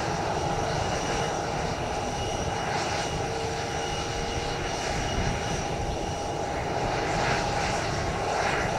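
Jet airliner engines running steadily: a broad rushing noise with a held whine, swelling slightly near the end.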